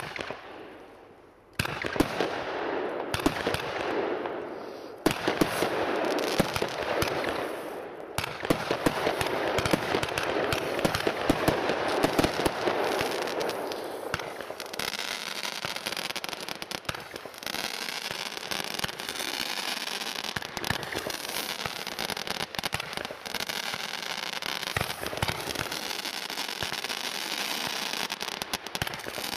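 Weco 'Fire Combat' firework going off: a sudden start about a second and a half in, then rapid shots with hissing, turning after about fifteen seconds into a dense, continuous crackle of many small pops.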